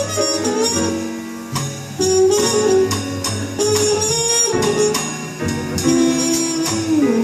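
Live jazz quartet playing, with a pitched melody line moving over bass and ringing cymbals.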